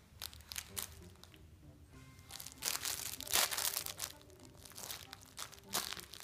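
Crinkling and crunching in short irregular bursts as a Shih Tzu chews a plush crinkle toy, loudest from about two and a half to three and a half seconds in. Background music plays underneath.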